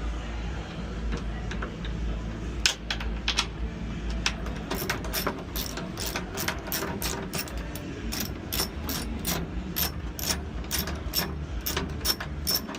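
Ratchet wrench clicking as a nut is undone, a few clicks at first and then a regular run of about two to three clicks a second from about four and a half seconds in. A low steady hum underneath.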